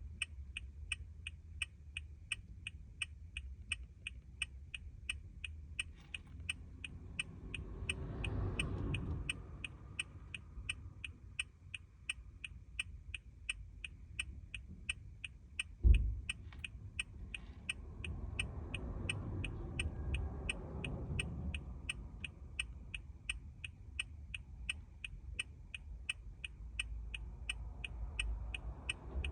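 2014 Toyota Corolla's hazard-light flasher ticking steadily, about two to three clicks a second. A single loud thump comes about halfway through, and a low rumble swells and fades twice.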